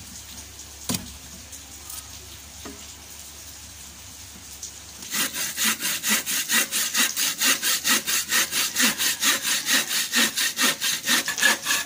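Hand saw cutting through a small wooden stick in quick, even back-and-forth strokes, several a second, starting about five seconds in.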